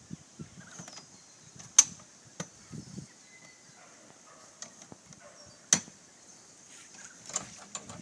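Aluminium hive-lifting trolley being handled and adjusted: two sharp metallic clicks, about two seconds and six seconds in, with lighter knocks between and a run of small clicks and rattles near the end.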